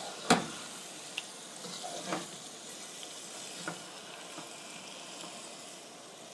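Chicken, onions and tomatoes sizzling in oil in a pan as they are stirred, with a steady frying hiss. A stirring utensil knocks against the pan a few times, the loudest knock near the start.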